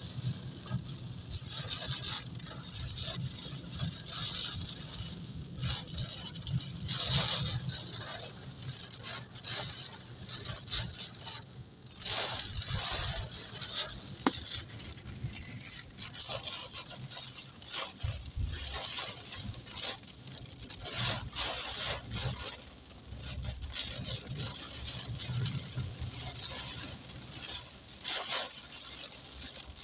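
Heavy rain on a moving car, heard from inside the cabin: rain pattering on the roof and windshield over the hiss of tyres on the flooded road, rising and falling in waves.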